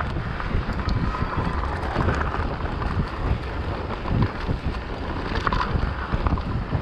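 Wind buffeting the microphone of a mountain bike's camera while riding a dirt singletrack, with the tyres running over the trail and irregular knocks and rattles from the bike over bumps.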